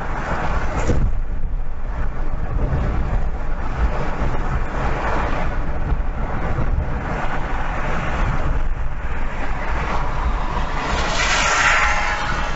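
Road noise in a moving car: a steady low rumble of tyres and engine, with a hiss that briefly swells about a second in and again near the end.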